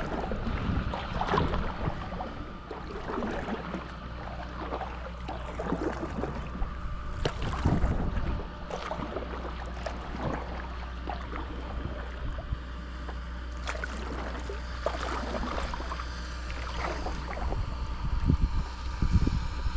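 Sounds of a kayak on the water: small splashes and water lapping with irregular light knocks against the hull, over a steady low rumble.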